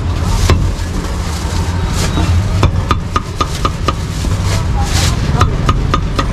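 Meat cleaver chopping roasted meat: runs of quick, sharp strikes, several a second, each with a short metallic ring, over a steady low rumble.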